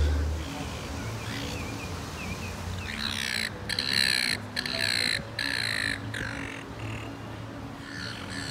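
Silver gulls squawking. Faint calls come first, then a dense run of loud, harsh squawks from about three seconds in.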